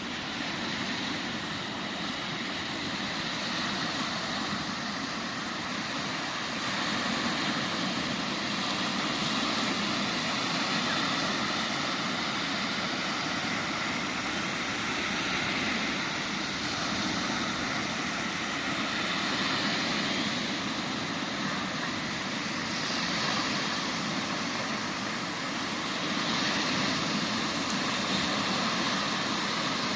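Sea waves breaking and washing up a beach: a continuous rushing that swells every few seconds.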